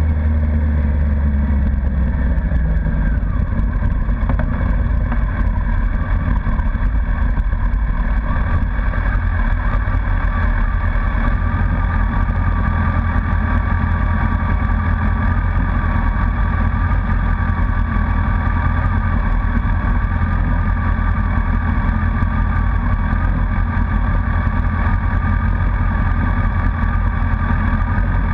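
Honda CBR1100XX Blackbird's inline-four engine, heard from on the bike, easing off over the first few seconds as the bike slows, then idling steadily while stopped.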